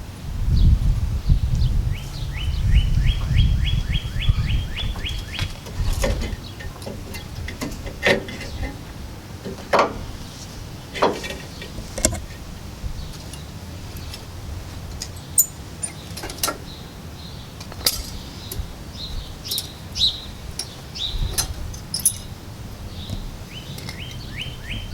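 Scattered metallic clinks and taps of tools and brake hardware being handled while a rear brake assembly is taken apart, with a low rumble in the first few seconds. A bird sings a quick trill of a dozen notes twice, near the start and again at the end.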